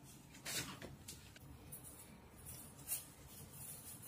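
Faint room tone with a few soft rustles and a short light click as hands hang baubles on the branches of an artificial Christmas tree.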